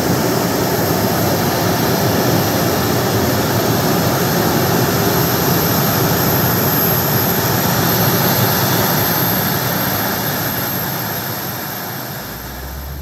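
A KC-135R Stratotanker's CFM56 (F108) turbofan engines running on the ground: a steady jet rush with a thin high-pitched whine over it, easing off a little near the end.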